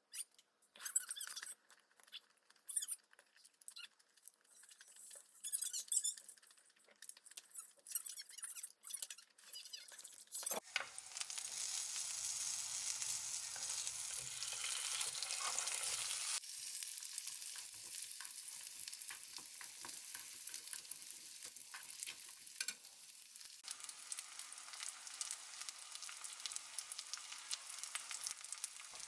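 Light kitchen clicks and clatters for about ten seconds, then food sizzling steadily as it fries in a pan, the sizzle changing abruptly twice.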